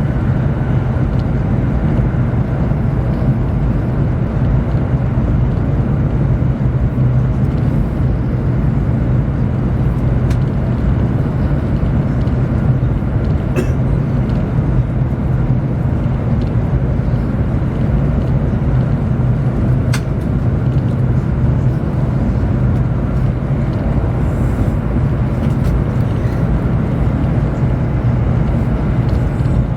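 Steady low rumble and rush of a Chinese high-speed train running at speed, heard inside the passenger cabin, with a couple of faint ticks partway through.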